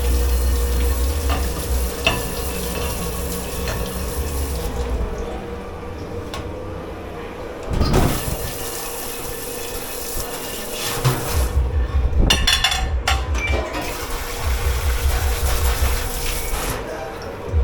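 Water running from a tap into a dish-pit sink, over a steady hum, with a knock about eight seconds in and dishes clinking about twelve seconds in.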